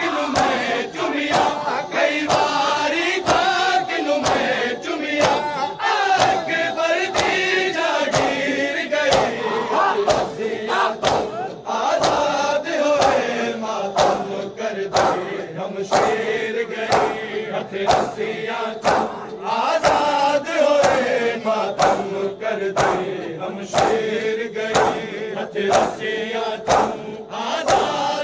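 Massed male voices chanting a noha in unison over a steady beat of sharp hand slaps on bare chests, a little more than one a second: the men are doing matam, keeping time with the recitation.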